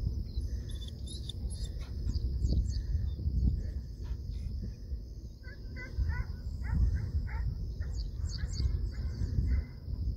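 Wind buffeting the microphone in uneven gusts, with birds chirping in short runs of calls and a steady high insect drone underneath.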